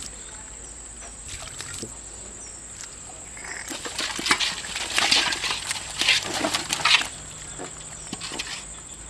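Live catfish thrashing and splashing in shallow water in a bucket as another fish is put in. The splashing is loudest for about three seconds in the middle, with a few lighter slaps near the end.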